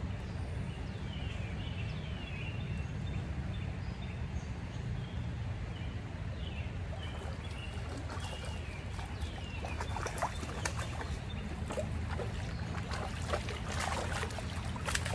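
Shallow river flowing over stones, a steady low rush, with birds chirping. From about halfway, legs wading and splashing through the shallows, the splashes getting busier near the end as a hooked rainbow trout is brought in.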